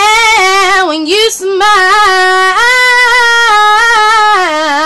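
A woman singing solo without accompaniment, holding long notes and bending the pitch through a wordless run, with a short breath about a second in.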